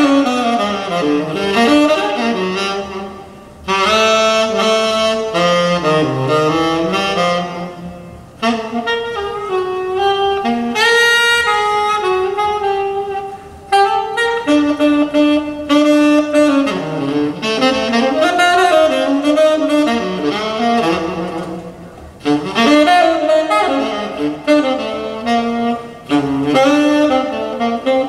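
Jazz saxophone recording played back in the room over Rogers loudspeakers driven by Dared tube amplifiers, from vinyl on a VPI turntable. The saxophone plays melodic phrases over accompaniment, with short breaks between the phrases.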